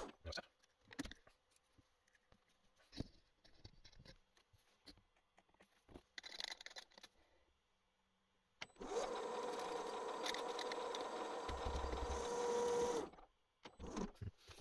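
Bench metal lathe stops abruptly, followed by scattered clicks and knocks of tooling being handled. About nine seconds in, the lathe runs steadily with a constant whine for about four seconds while a tailstock drill bores into the small metal part in the chuck, then stops; a few knocks near the end.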